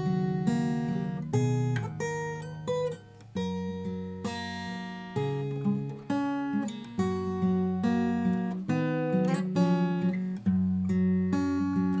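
Morris MF-255TS steel-string acoustic guitar played solo, with chords picked and strummed every half second to a second and the notes left ringing between them. There is a brief drop-out about three seconds in before the next chord.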